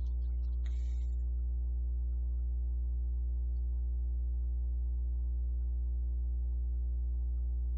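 Steady low electrical hum with a ladder of fainter overtones above it, unchanging throughout: mains hum carried on the audio line.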